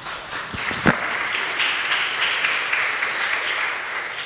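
Audience applauding, building up about half a second in and fading away near the end, with one sharp knock about a second in.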